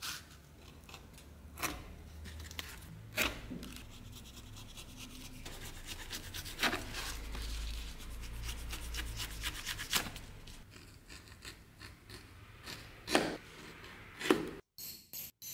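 Steel leather-working blades, an edge beveler and a knife, scraping and shaving the edge of a piece of leather, with a handful of sharp clicks scattered through.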